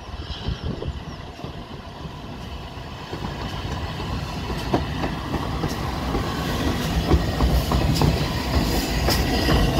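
LNER A3 Pacific steam locomotive Flying Scotsman and its train passing close by: a low rumble that grows steadily louder from about three seconds in, then sharp clicks of the wheels over the rail joints as the engine and tender draw level.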